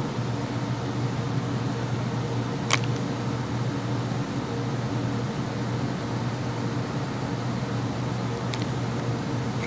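Room air conditioner running with a steady hum and a whoosh of air, with a short click about three seconds in and a fainter one near the end.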